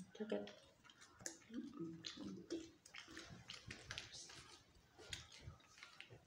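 Soft rustling and scattered crackles of a sweatshirt's fabric being handled and brushed against the microphone, with a few short low tones in the first three seconds.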